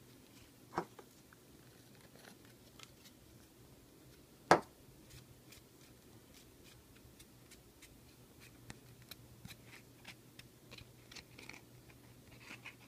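Small clicks and taps from handling a small object, with one sharp click about four and a half seconds in, over a low steady hum.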